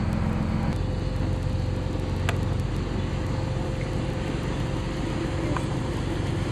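A boat's engine running steadily under way, a low even drone with a steady noise over it; a single short click a little over two seconds in.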